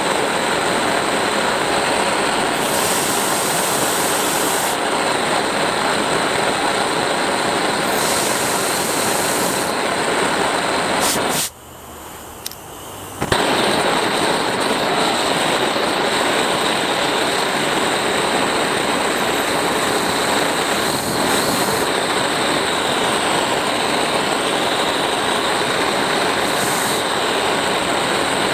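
Blowtorch flame running with a steady rushing hiss. About eleven and a half seconds in it drops away for nearly two seconds, then comes back with a sharp click.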